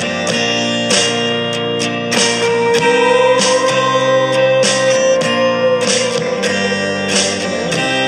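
Instrumental background music with plucked, guitar-like notes and a long held melody note through the middle.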